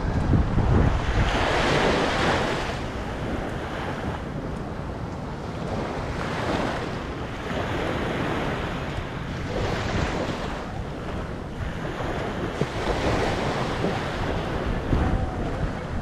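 Small waves lapping and washing up a sandy shore, the wash swelling about every four seconds, with wind buffeting the microphone.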